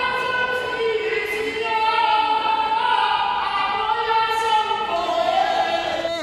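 A man singing a Hakka mountain song (shan'ge) in a high voice, in slow phrases of long held notes that bend slowly in pitch.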